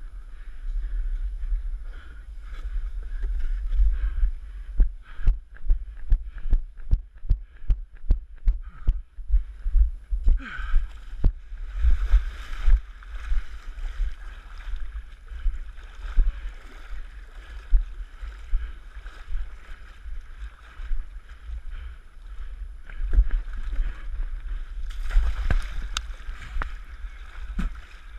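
Strong wind rumble on the microphone, with a run of thuds about two a second, footsteps on the ground, in the first half, then splashing as the wearer wades through shallow muddy water, with louder splashes about 11 seconds in and again near the end.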